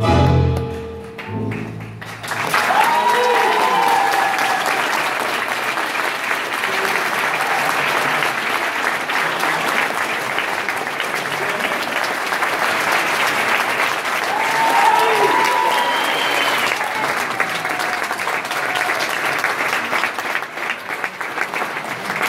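Tango music ends on a final note, then the audience breaks into steady applause, with a few cheering calls rising above the clapping.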